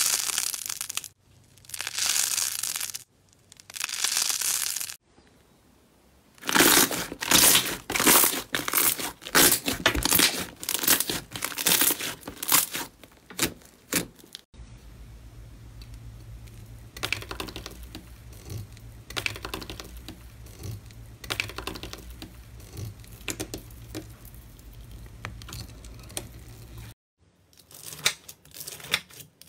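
Hands playing with slime: three short squishes at first, then a long stretch of dense crackling and popping, which later continues more softly over a low steady hum.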